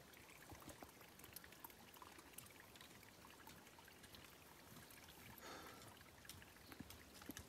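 Near silence: faint outdoor ambience, an even hiss with a few light ticks.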